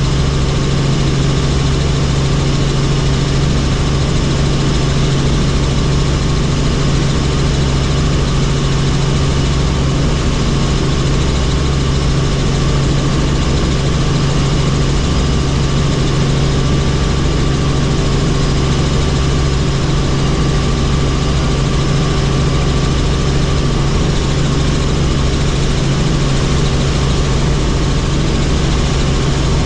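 Helicopter in flight: a steady, loud engine and rotor drone with a strong constant low hum and fainter steady higher tones.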